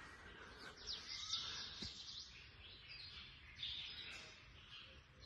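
Small birds chirping, many short high calls overlapping, faint against a low background hum.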